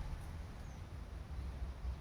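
Low steady rumble of wind on the microphone, with a faint, short, high bird chirp about half a second in.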